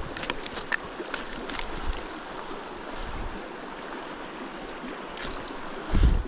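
Creek water running steadily over rapids, with a few sharp small clicks of handling and a loud low thump about six seconds in.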